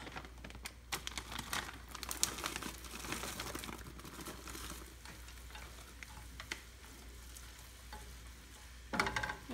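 A red spatula stirring frozen mixed vegetables in a stainless steel sauté pan: many quick clicks and rattles of the frozen pieces over a faint sizzle of hot oil. Frozen green beans are tipped in from a bag partway through.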